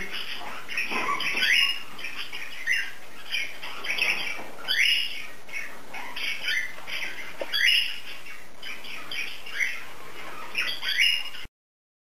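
A room of caged pet parrots and canaries calling together: a busy background of chirping and chatter, with loud, short rising squawks about once a second. The sound cuts off suddenly near the end.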